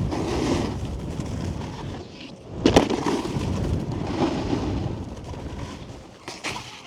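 Snowboard sliding and carving on packed snow at speed, with wind rushing over the helmet-mounted microphone. A sharp knock of the board about two and a half seconds in, and a smaller click near the end.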